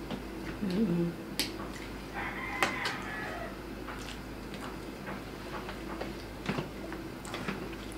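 Eating sounds: palabok noodles slurped and chewed, with sharp clicks of chopsticks and a fork against plates. A brief higher-pitched call sounds about two to three seconds in.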